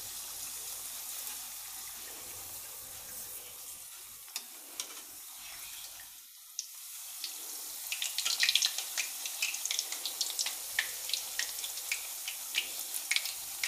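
A puri deep-frying in hot oil in a steel kadai on full flame: a steady sizzle that dips briefly about six seconds in, then comes back with many sharp crackles and spits from about eight seconds as the puri is pressed with a slotted spoon and puffs up.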